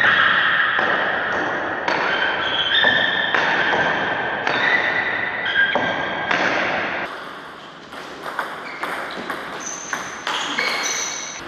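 Celluloid-type table tennis ball hit back and forth in a rally: quick, irregular clicks of ball on bat and ball on table, each ringing briefly.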